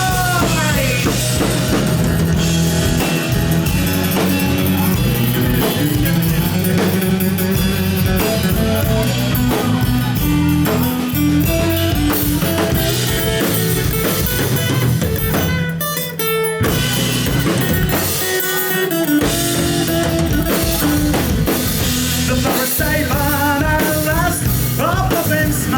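Live rock band playing an instrumental break of the song: drum kit, guitars and bass, with the low end dropping out briefly about sixteen seconds in.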